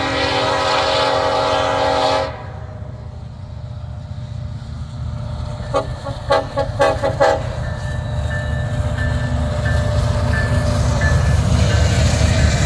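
Diesel freight locomotive air horn sounding a long chord that cuts off about two seconds in, then a quick run of short horn blasts around the middle, over the low rumble of the approaching train, which grows louder near the end.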